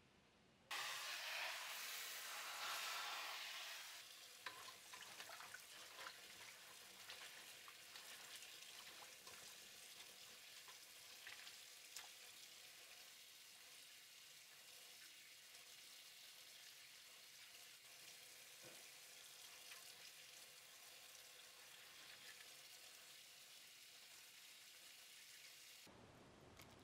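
Water swishing and splashing in a stainless steel bowl as green onions are washed by hand, with small clicks and drips. It is louder for the first few seconds, then settles to a steadier, fainter sloshing.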